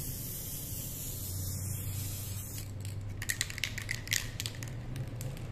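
Aerosol spray paint can hissing in a continuous burst for about two and a half seconds as a thin coat goes onto a cable-tie crown, then a quick run of sharp clicks.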